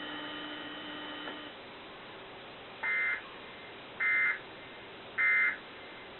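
Emergency Alert System end-of-message code: three short, identical buzzy bursts of SAME digital data tones about a second apart, signalling that the alert is over. A steady background hum cuts off about a second and a half in, before the bursts.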